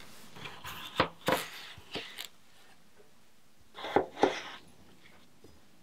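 Chef's knife slicing through a raw russet potato, the blade knocking on a plastic cutting board at the end of each cut: a quick run of four cuts in the first couple of seconds, then two more about four seconds in.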